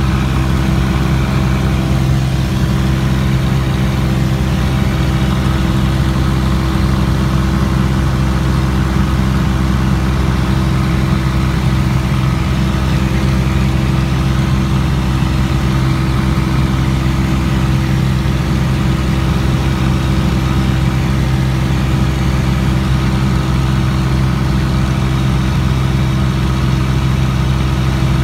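Cessna 206 seaplane's piston engine and propeller droning steadily in cruise flight, a loud, even low hum with no change in pitch.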